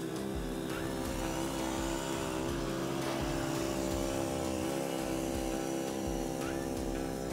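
Swardman Edwin 2.1 reel mower's small petrol engine running steadily while the mower cuts, growing a little louder as it passes close by about the middle and easing off as it moves away.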